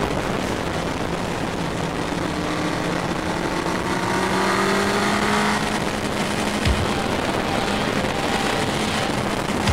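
Sport motorcycle engine under way, heard through heavy wind rush on a bike-mounted camera. Its pitch climbs steadily as it accelerates from about three seconds in to five and a half, then levels off. There is a brief thump about two-thirds of the way through.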